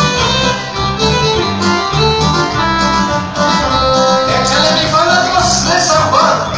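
Music on guitar and fiddle over a steady, rhythmic bass; about four seconds in, a wavering higher melody comes in above it.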